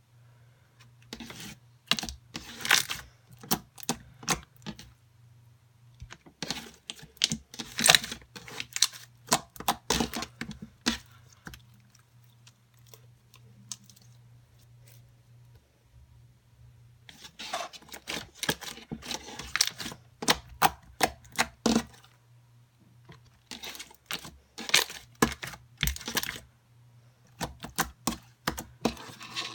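Clear jelly slime being squeezed and worked by hand, giving irregular runs of sharp clicks and pops from its trapped air bubbles, with a quieter stretch about halfway through.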